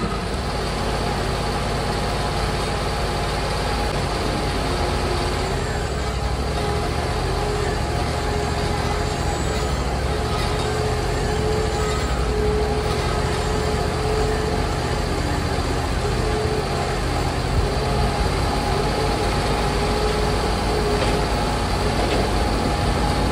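Skid steer loader's engine running steadily under load as it carries a log, its pitch rising and falling a little.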